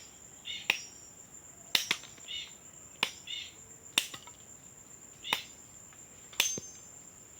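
Sharp knocks about once a second, seven or so, from a hand tool striking the ground while digging holes for cassava cuttings, over a steady high-pitched insect drone with short chirps.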